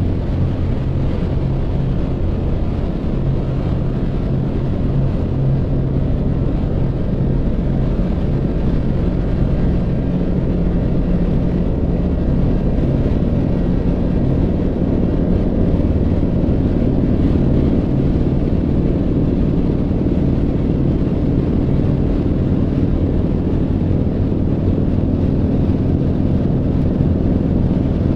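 A motor vehicle's engine running steadily with a low drone, getting a little louder about halfway through.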